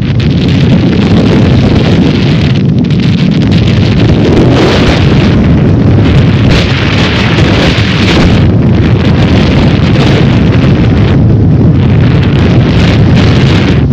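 Storm wind buffeting the microphone: a loud, continuous rumble with gusts that swell and ease every couple of seconds.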